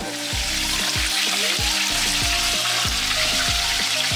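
Whole flour-dredged spotted rose snapper frying in a pan of hot oil: a loud, steady sizzle that swells within the first half second.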